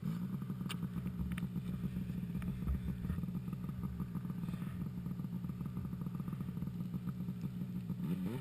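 An engine starts suddenly and settles into a steady idle with a fast, even pulse.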